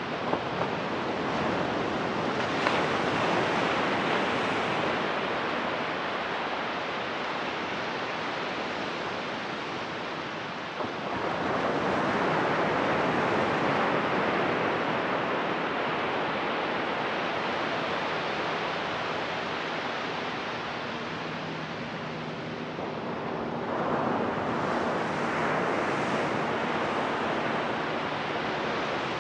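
Ocean surf breaking and washing up a sandy beach: a steady rush that swells three times as sets of waves come in.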